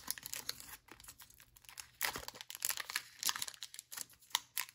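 Pokémon booster pack's foil wrapper crinkling and tearing as it is pulled open by hand: irregular crackles, thinning out for about a second after the first second and picking up again.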